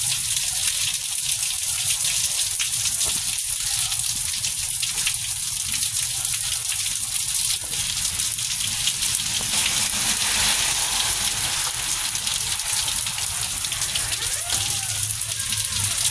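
Rain falling steadily, a dense hiss of many small drops pattering on a surface.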